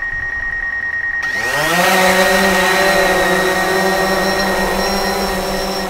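DJI Phantom quadcopter's propellers idling with a steady high whine, then spinning up for take-off about a second in: a buzzing whine rises in pitch over half a second, then holds steady as the drone lifts off and hovers.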